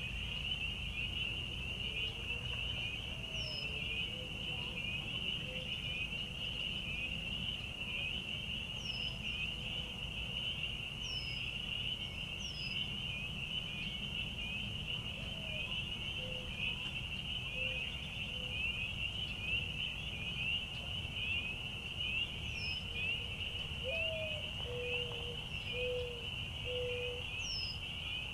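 A dense chorus of frogs trilling steadily, with scattered short high bird chirps. A short run of lower call notes comes near the end, over a low steady rumble.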